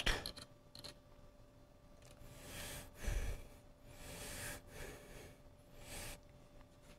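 Quiet shop with a faint steady hum, a person's soft breaths several times, and one low thump about three seconds in.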